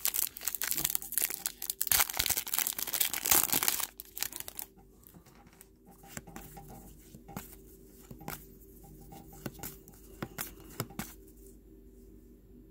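Crimped plastic wrapper of a Topps WWE trading-card pack being torn open and crinkled for about four seconds. Then much quieter, with scattered soft clicks as the cards are handled and flipped through.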